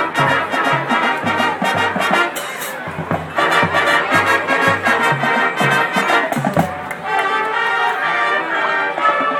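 Marching band playing a jazz arrangement: full brass with drums, over a line of low notes that change about twice a second.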